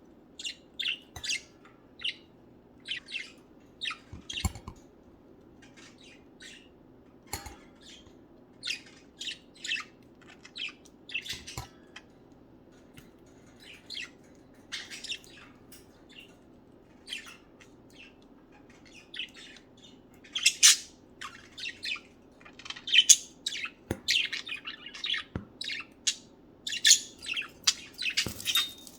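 Budgerigars chirping and chattering: many short high calls, busier and louder in the last third. A few light clicks and taps in between.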